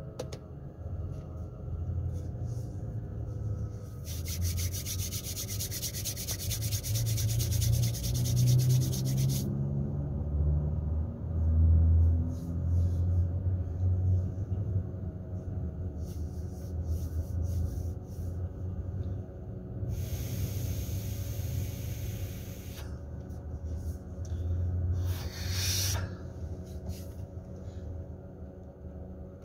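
Low rumble of a car idling, heard from inside the cabin, with a rise in pitch about ten seconds in. Two stretches of hissing, scratchy noise come over it, and a short swish follows near the end.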